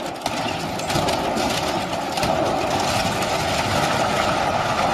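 A heavy machine's engine running steadily.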